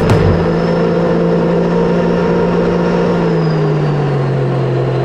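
Sea-Doo RXP-X 300 jet ski's supercharged three-cylinder Rotax engine running at a steady pitch, then easing off and dropping in pitch from about three seconds in.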